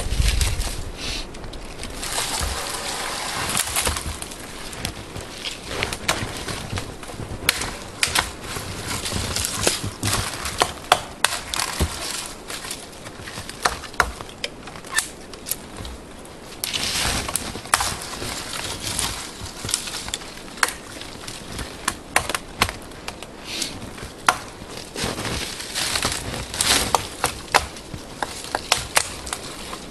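Buck 119 fixed-blade knife chopping branches off a dead fallen tree: irregular sharp chops, with stretches of rustling branches between them.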